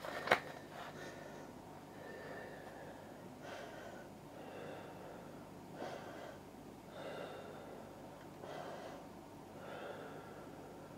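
A person breathing audibly through the nose close to the microphone, a breath every second or so, with one sharp click of something being handled just after the start.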